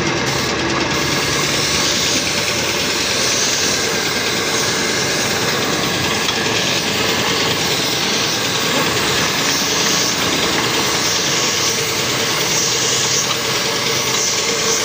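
Compressed-air spray gun hissing as it sprays a wood finish onto carved wooden furniture, over a steady mechanical drone.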